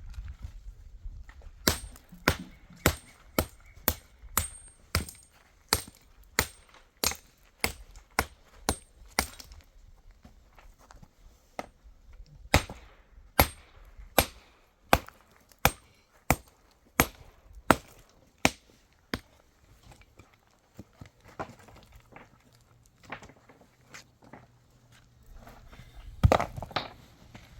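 A long series of sharp knocks, about two a second, stopping about two-thirds of the way through, followed by a few scattered weaker knocks and one louder clatter near the end.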